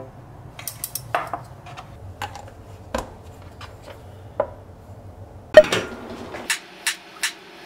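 Scattered clinks and knocks of a stainless-steel lunch box and a small lidded container being handled and set down on a cutting board, with one loud clank about five and a half seconds in. Near the end come steady knife chops through Korean zucchini on a cutting board, about two and a half a second.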